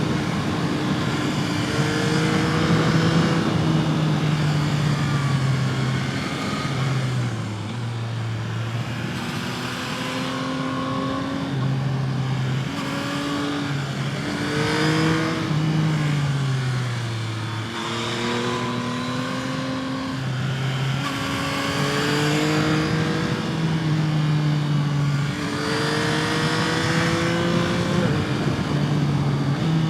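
Yamaha MT-09's three-cylinder engine and exhaust under way, its pitch climbing under throttle and stepping down at gear changes, then falling as the throttle closes, over and over. Wind noise hisses underneath.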